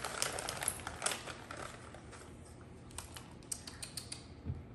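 Plastic treat pouch rustling and crackling as hands dig treats out of it, in quick runs of small clicks and crinkles. A soft thump comes near the end.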